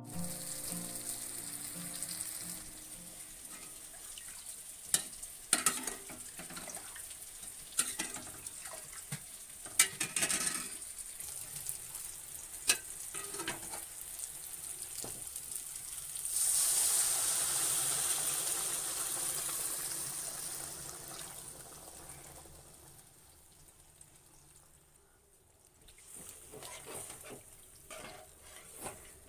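Prawn curry sizzling in a pan while a spoon stirs and knocks against the pan. About two-thirds of the way through, a louder hiss surges up and slowly dies away over several seconds.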